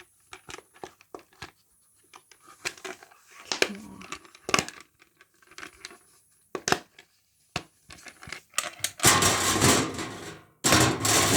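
Plastic fidget toys being handled: scattered sharp clicks and snaps, then two louder bursts of crinkling rustle near the end.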